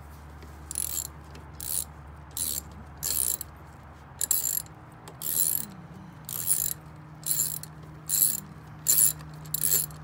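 Socket ratchet clicking in repeated back-strokes, about one burst of rapid pawl clicks a second, as it tightens the bolts holding a car's rear seat latch.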